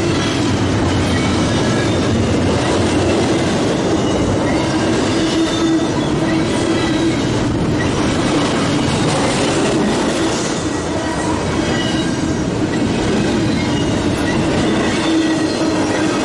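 Intermodal freight train of double-stacked container cars and trailer-carrying flatcars rolling past: a loud, steady rush of steel wheels on rail with a steady low tone running through it.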